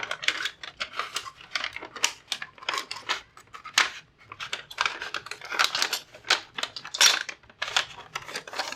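Irregular clicks, taps and rustling of hands packing away and setting aside keyboard parts and their packaging.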